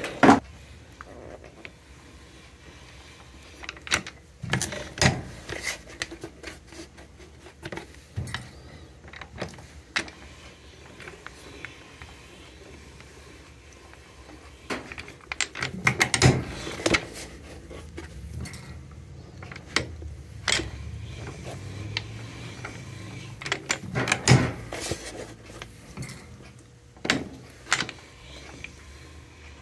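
A Landis shoe-repair machine working along the edge of a boot's newly glued leather midsole, with scattered clicks and knocks as the sole is pressed and turned against its wheel, and a low hum through the middle.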